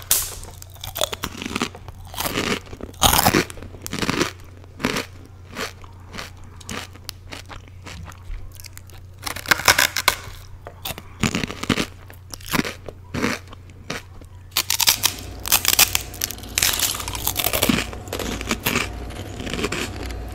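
Crisp roast-pork skin (chicharrón) crunching in a series of irregular sharp crunches and crackles, coming thicker near the end.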